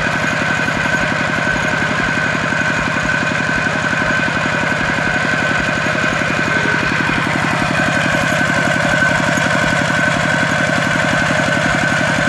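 A motor engine running steadily with a fast, even chugging. It is machinery that someone working close by has switched on.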